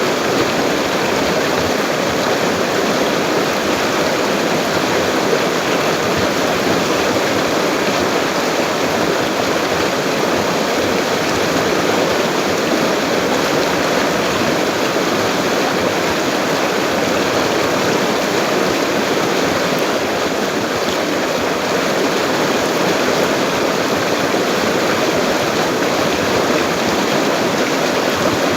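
A full-flowing river rushing steadily: a dense, even wash of water noise that holds without a break or change.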